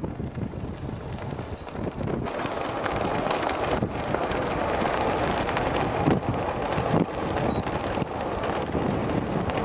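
Wind buffeting the microphone: a steady rushing noise that dips and swells.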